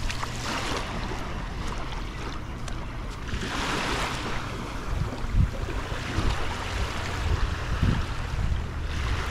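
Sea waves breaking and washing up a sandy beach, swelling loudest about three and a half seconds in, with wind rumbling on the microphone.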